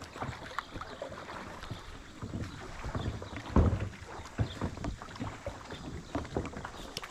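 Water lapping and splashing against a kayak close to the microphone, with irregular low knocks, the loudest about three and a half seconds in. Some wind buffets the microphone.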